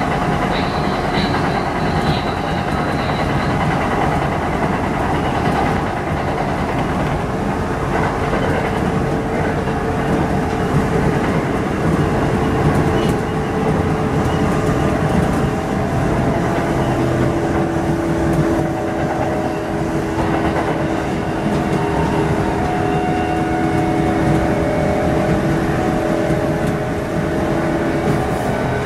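Kintetsu Osaka Line electric train running at speed, heard from inside the front cab: a steady rumble of wheels on rail, with a hum that shifts in pitch now and then.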